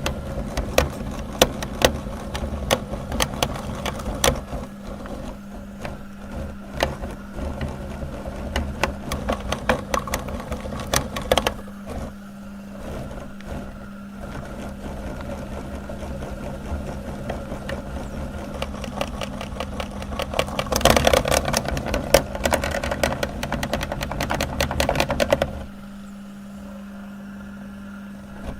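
Electric meat grinder's motor running with a steady hum while soap is forced through it, crackling and crunching irregularly. The crunching eases off in the middle, returns louder, then stops abruptly a few seconds before the end, leaving the motor running empty.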